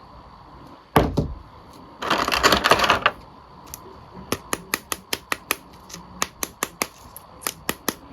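Plastic action figures being handled: a knock about a second in, a short stretch of rattling, then a run of sharp, irregular plastic clicks, a few per second.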